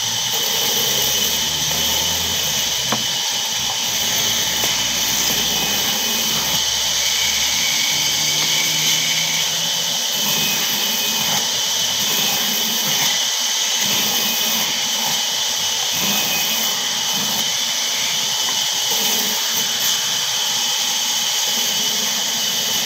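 Vertical band saw running steadily, its blade cutting through small blocks of wood with a continuous high-pitched noise.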